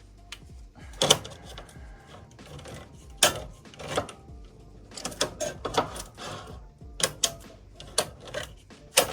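Irregular metallic clicks and knocks of a can of corn being worked open with a poor hand can opener after it failed to cut all the way round the lid.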